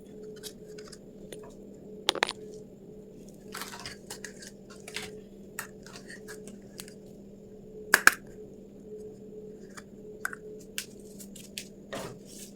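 Small plastic toy kitchen pieces and their packaging being handled: scattered light clicks and taps, two sharper clacks about 2 and 8 seconds in, and a short rustle around 4 seconds in, over a faint steady hum.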